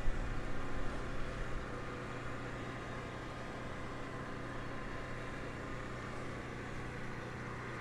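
Steady low machine hum with an even background hiss, a little louder and more uneven in the first second and a half, with no distinct work sounds.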